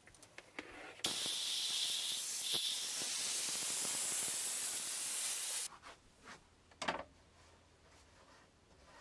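A pressurised spray hissing steadily for about four and a half seconds, starting about a second in and cutting off suddenly, followed by a sharp knock.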